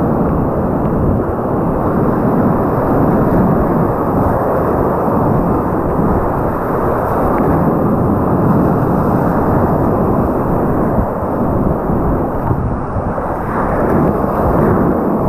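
Steady, loud roar of a flooded whitewater river rushing through rapids around a kayak, heard muffled, as through a waterproof action-camera housing.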